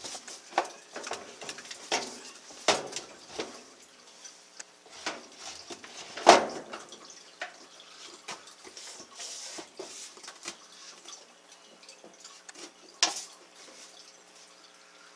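Washing machine panels and parts being handled and fitted during reassembly: a string of sharp taps, clicks and clanks, the loudest knock about six seconds in and another near the end.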